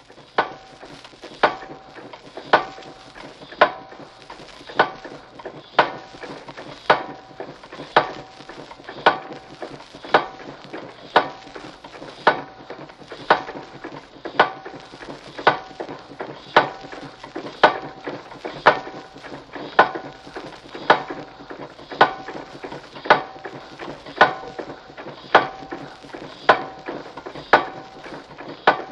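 Water drill working in a steady rhythm: a sharp metallic clank about once a second, each with a short ringing note, over a constant crackling hiss.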